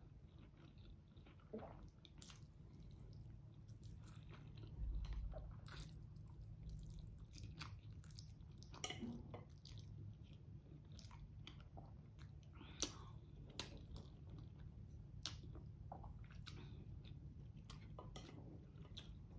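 A person chewing a mouthful of spaghetti carbonara: quiet, irregular wet mouth smacks and clicks, with noodles being sucked in. There is a steady low hum underneath.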